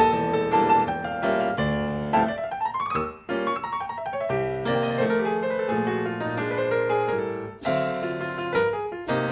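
Jazz piano playing, from a cassette recording of a live FM broadcast, with a fast upward run about two to three seconds in. Near the end cymbal crashes and drums come in under the piano.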